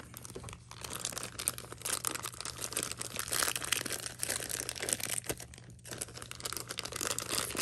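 Thin clear plastic bag crinkling and rustling as hands pull and work it open, with a short lull about six seconds in.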